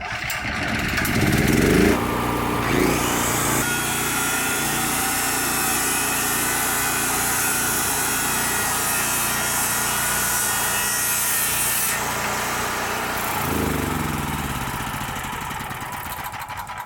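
Electric power saw cutting wood off the side of a window to make it fit the framed opening. The motor's pitch rises over the first two seconds, runs steady while cutting, and falls away as it winds down near the end.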